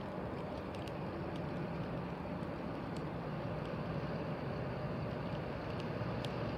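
Distant test train's engine droning steadily as it approaches, slowly growing louder, with faint scattered ticks over it.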